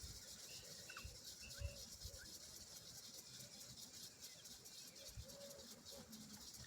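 Near silence with a faint hiss. A few short, faint bird-like chirps are scattered through it, and there is a soft knock about one and a half seconds in.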